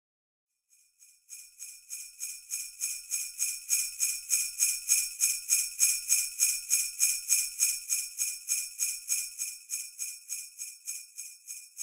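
Jingle bells shaken in a steady rhythm, about three shakes a second. They start about a second in, grow louder toward the middle, then ease off a little.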